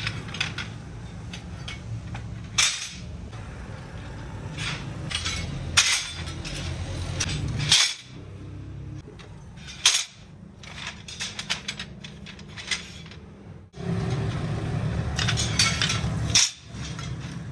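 Flat steel cultivator-blade blanks clinking and clattering as they are picked up, sorted and stacked by hand, in irregular sharp metal knocks over a steady low hum.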